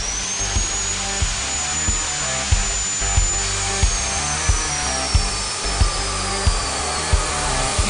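Bosch GCO 14-24 abrasive cut-off saw running and grinding through metal with a loud rasping hiss. Its high motor whine climbs just at the start, holds, then sags slowly over the second half as the disc is loaded in the cut. Background music with a steady beat plays over it.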